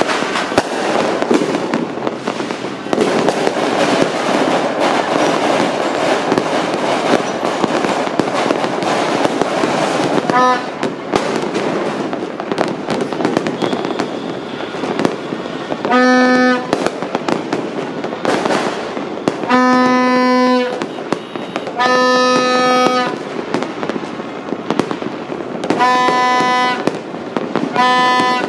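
Fireworks and firecrackers going off all over a city at New Year: a dense, unbroken crackle of overlapping bangs. From about ten seconds in, a horn sounds over it in several separate blasts, each about a second long.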